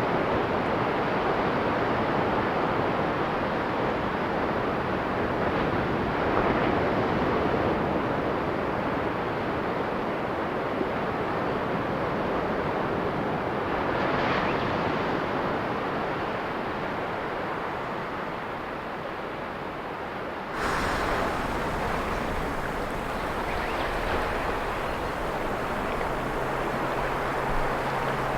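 Ocean waves washing on the shore, a steady surf rush that swells and falls back every several seconds. About two-thirds of the way in the sound changes abruptly to a brighter wash, and a faint steady low hum joins it near the end.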